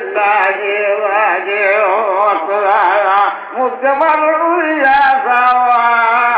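A man singing a slow, unaccompanied-sounding song, holding long notes that waver and slide between pitches.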